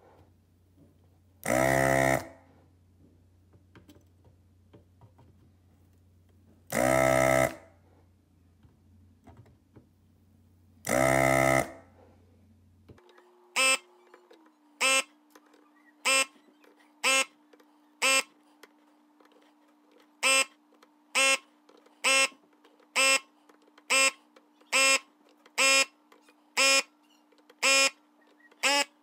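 Hakko FR-301 desoldering gun's vacuum pump buzzing in three separate bursts of under a second each, as it sucks molten solder from the pins of a Dallas DS1287 RTC module. About halfway through come short buzzes in quick succession, about one a second.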